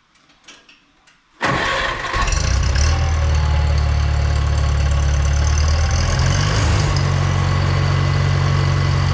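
International Cub Lo-Boy's four-cylinder gasoline engine being cranked on its 12-volt electric starter, kicking in suddenly about a second and a half in and turning over steadily without catching. A few faint clicks come before it.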